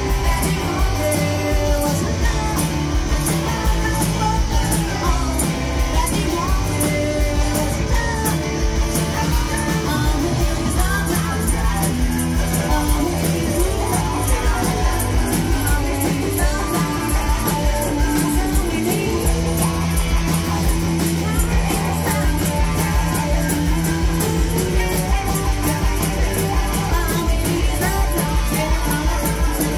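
Live rock band playing: electric guitars, bass guitar and drums with a steady beat, and a woman singing lead.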